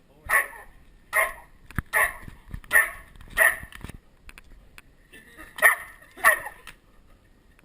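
An animal barking: seven short, sharp barks at about one every 0.8 s, with a pause of about a second and a half partway through.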